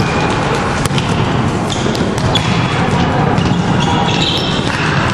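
Volleyballs being hit and bouncing on a sports-hall floor, with a sharp smack about a second in. Short high sneaker squeaks come off the court over a steady, echoing hall hubbub.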